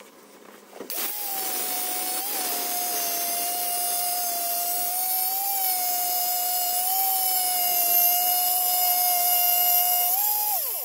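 Electric wet stone-cutting saw starting up about a second in and running with a steady high whine while cutting through stone, its pitch dipping slightly under load. Near the end the pitch rises briefly as the blade comes free, then falls away as the saw is switched off and winds down.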